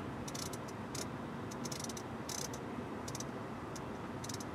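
Soft, irregular clicks of the infotainment controller as a menu list is scrolled, a few a second, over a steady low hum in the car's cabin.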